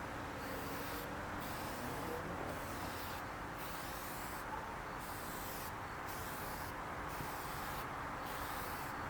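Aerosol headlight clear coat sprayed in about nine short bursts, one pass after another, as the last coat goes on. A steady rush of wind on the microphone runs underneath.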